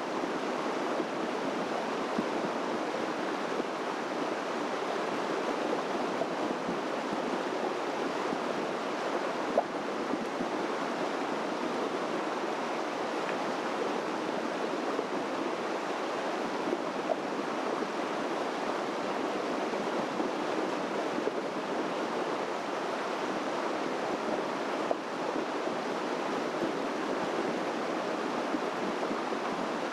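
A stream rushing steadily: an even, unbroken wash of water noise, with a few faint clicks.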